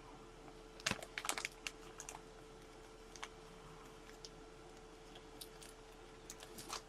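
Faint scattered light clicks and taps, with a quick cluster about a second in and a few more near the end, over a faint steady hum.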